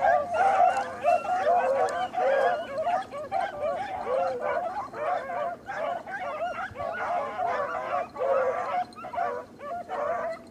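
A pack of beagles baying without a break, many voices overlapping: the hounds in full cry running a rabbit's track.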